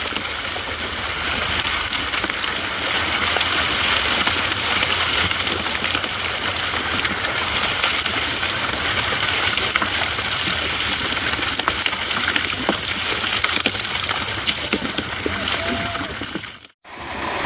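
Steady gushing and splashing of water pouring from a fish-stocking truck's tank outlet into the lake as trout are released. It cuts off abruptly near the end.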